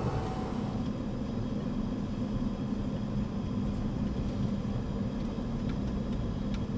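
Steady low rumble and hum inside a Boeing 717's cockpit as the jet taxis. About a second in, the outdoor ramp noise with a high steady whine cuts off.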